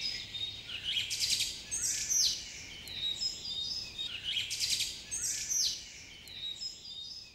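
Songbirds chirping and singing: quick high-pitched calls, trills and down-slurred notes, repeated over and over.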